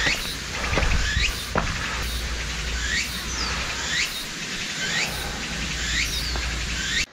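Summer woodland ambience: a steady high hiss of insects, with a short rising chirp repeating about once a second and a low rumble of wind on the microphone.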